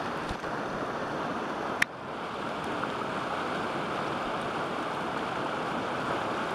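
Steady rush of a shallow, rocky river running over stones, with one sharp click just under two seconds in.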